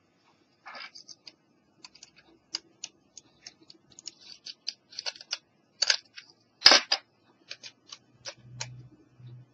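Small plastic clicks and ticks from a Panasonic portable cassette player's casing being handled and worked at with a small screwdriver, irregular, with one sharper snap about two-thirds through. A short low hum comes near the end.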